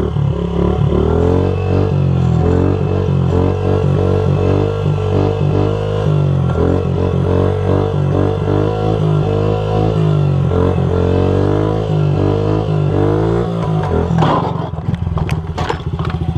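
Music with a steady low drone and a repeating melodic figure. Near the end, sharp clicks and the running of a small single-cylinder motorcycle engine come in.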